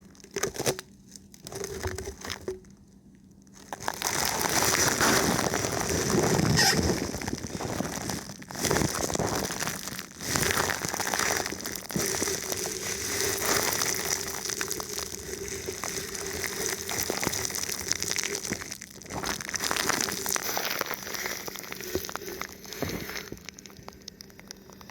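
Thin plastic film wrapped over a microphone being rubbed and touched: dense crinkling and crackling with many small clicks, getting going about four seconds in after a few brief touches, with short pauses and tapering off near the end.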